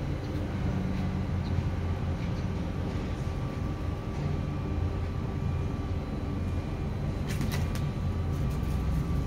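Steady low engine rumble, with a few faint clicks near the end.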